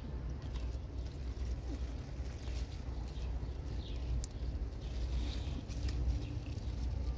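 Tomato plant leaves and stems rustling as a hand reaches in among them and takes hold of a small yellow tomato, with faint scattered clicks, over a low steady rumble.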